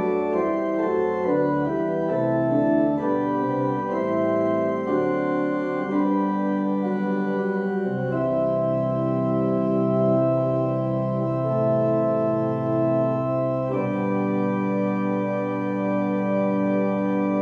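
Organ playing the closing postlude: a series of sustained chords changing every second or so, then a long held chord, and another held chord from near the end.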